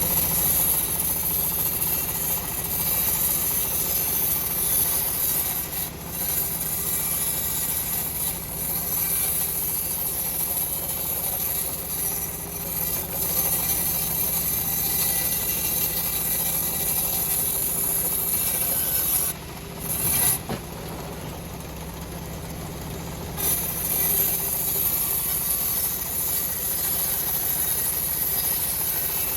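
Homemade engine-driven bandsaw mill running, its blade sawing through a teak log with a steady hiss over the engine's hum. About nineteen seconds in, the cutting noise stops for about four seconds while the engine keeps running, then the cut resumes.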